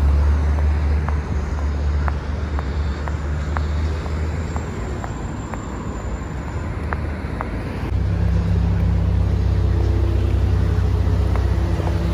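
A motor vehicle running with a steady low rumble, with scattered light clicks over the first half. About eight seconds in the rumble gets louder and a steady low engine tone comes in.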